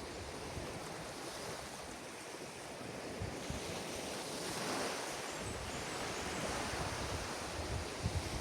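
Ocean surf breaking and washing up the beach, a wave's rush swelling about halfway through. Wind buffets the microphone near the end.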